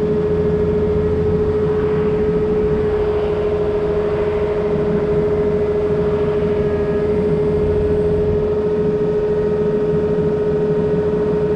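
Takeuchi excavator's diesel engine running at a steady speed, heard from the cab, with a constant high whine over its low rumble.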